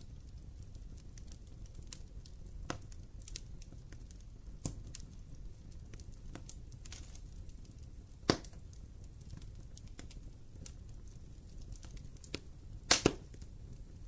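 Wood fire burning in a fireplace: a low steady rumble of flame with scattered sharp crackles and pops, the loudest single pop about eight seconds in and a quick double pop near the end.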